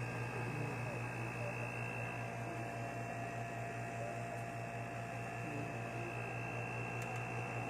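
Kelvinator 1 hp non-inverter window-type air conditioner running: a steady low hum with faint, steady higher-pitched tones above it.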